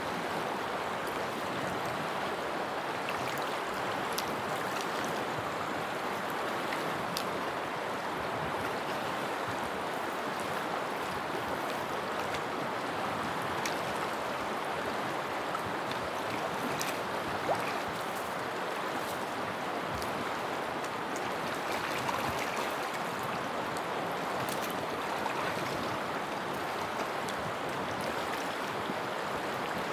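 Water of a stream rushing steadily, with a few faint clicks now and then.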